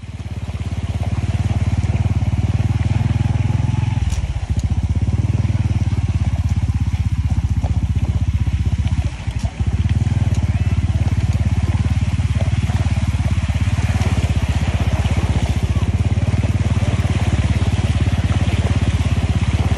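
An engine running steadily close by with an even low throb. It eases off briefly about four seconds in and dips for a moment about nine seconds in.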